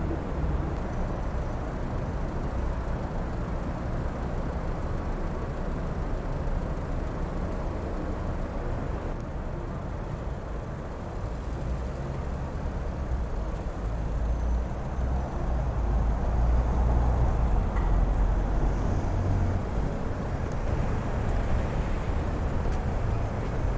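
City street traffic: a steady low rumble of passing vehicles, swelling a little past halfway as one passes close.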